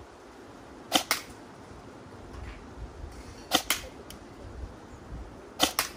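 Electric airsoft replica AR-15 firing plastic pellets: six sharp snapping shots in three quick pairs, the pairs about two and a half seconds apart.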